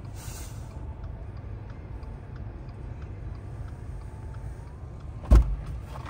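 Car heard from inside the cabin, a steady low rumble of the running engine with a few faint clicks; a car door thumps shut once about five seconds in.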